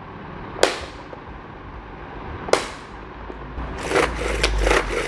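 Two sharp clicks as the plastic lid of a pull-string mini vegetable chopper is pressed home onto its locks. About four seconds in, the freshly restrung cord is pulled out and the mechanism spins in a quick run of rattling pulses, about five a second, showing that the repaired cord and spring pulley work again.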